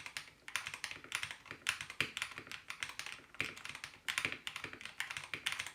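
Fast typing on a modded budget mechanical keyboard with a hand-sawn plate and silicone dampening inside. The keystrokes come in quick runs of clicks, with brief pauses between them.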